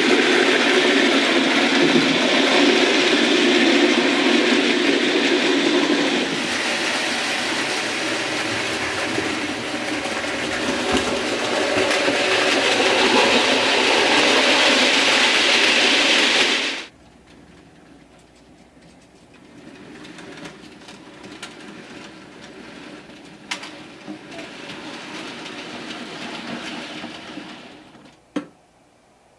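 OO gauge Hornby Class L1 model tank locomotive running on the track: a steady motor whir and wheel clatter that cuts off suddenly a little past halfway. Fainter running follows, with a couple of sharp clicks near the end.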